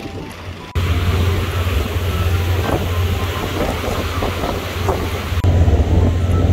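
Wind buffeting the microphone on the deck of a moving car ferry, a steady rushing noise with heavy low rumble over the wash of the wake. It starts abruptly under a second in and gets louder about five seconds in.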